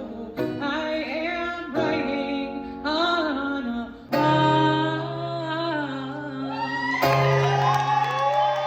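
A woman singing with instrumental accompaniment, her phrases moving between long held notes over a steady held chord.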